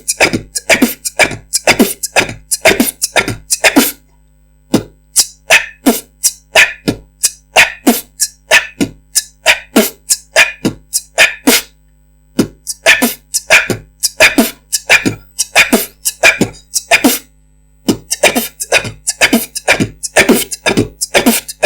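Beatboxed practice beat: kick drums, hi-hats and cough snares (a throat cough followed by a loud whispered burst of air), performed as a quick steady rhythm. It runs in four phrases with short breaks about four, twelve and seventeen seconds in.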